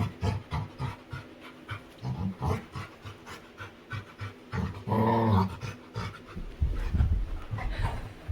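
Labrador retriever panting in quick, breathy bursts while playing. Near the middle it gives a low, drawn-out grumble about a second long.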